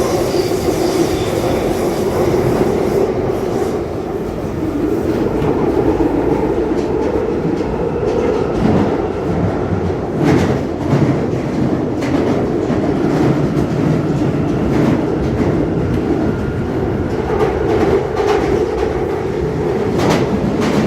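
London Underground Northern line train running between stations, heard from inside the carriage: a steady rumble of wheels on rail, with a few sharp clicks from the track about halfway through and near the end.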